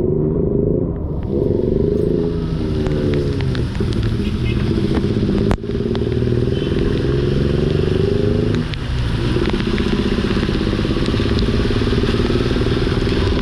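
A motor vehicle engine running under way, its pitch climbing and then falling away twice as it speeds up, over a steady rush of noise. A sharp click comes about five and a half seconds in.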